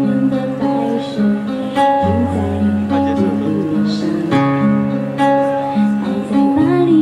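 Background music: the instrumental stretch of a pop song, with strummed acoustic guitar.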